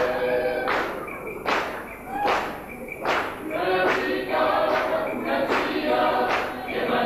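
Voices singing together in a chant, with a steady thudding beat about every 0.8 seconds.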